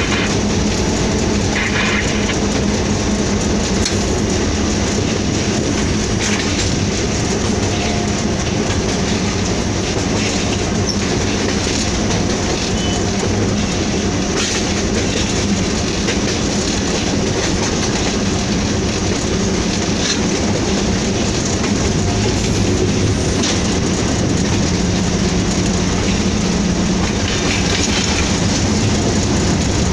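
Heard from inside the cab of a Hitachi PHA-20 diesel-electric locomotive: the engine drones steadily while the train rolls on. Irregular clicks and clatters come from the wheels running over rail joints and points.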